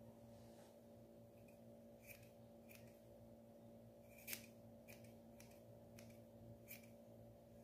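Quiet snips of scissors cutting a small white dog's fur around its face, about ten cuts at uneven intervals with one louder snip near the middle, over a faint steady low hum.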